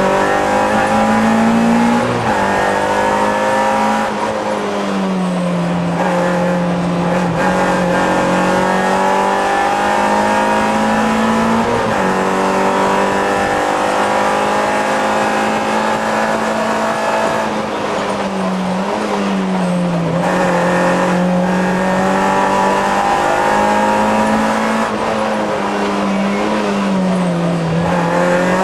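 Citroën Saxo rally car's four-cylinder engine at full throttle, heard from inside the cabin, its pitch climbing and then dropping sharply again and again as it is driven hard through the gears and into corners.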